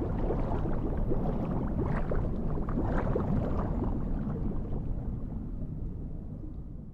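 Rushing, gurgling noise of moving water with small crackles through it, fading out over the last couple of seconds.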